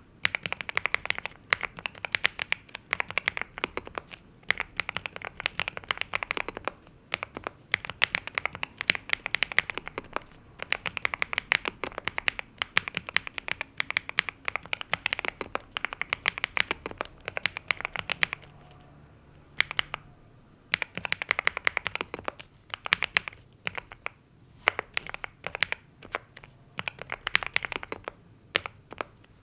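Typing on a NuPhy Gem80 mechanical keyboard with NuPhy Mint linear switches and double-shot PBT mSA keycaps: rapid, continuous key clacks in runs, with a pause of about two seconds about two thirds of the way in.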